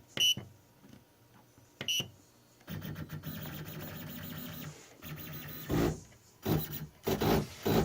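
Two short beeps from the 3D printer's LCD controller, then the Y-axis stepper motor runs steadily for about two seconds, driving the bed. Several loud, rough bursts from the motors follow near the end, which the builder takes as a sign that the motors need adjusting.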